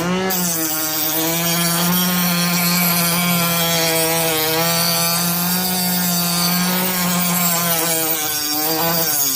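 Small electric knife sharpener's motor, running on USB charger power, spinning steadily with a loud hissing grind, as of a blade against its sharpening wheel. Its pitch dips briefly at the start and again near the end.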